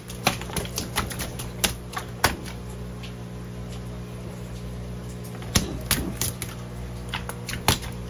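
Irregular sharp taps and knocks as a large olive flounder is pressed, turned and bled on a plastic cutting board with gloved hands, a quick cluster in the first couple of seconds and another near the end, over a steady low hum.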